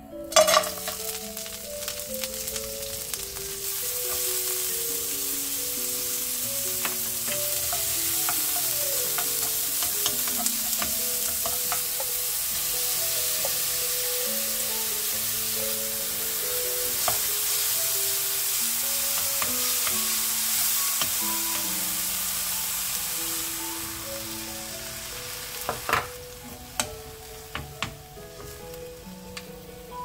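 Chopped green onions and then ground pork frying in hot oil in a nonstick wok, a loud sizzle that starts abruptly as the food hits the pan, while a wooden spoon stirs. The sizzle dies down near the end, followed by a few sharp knocks.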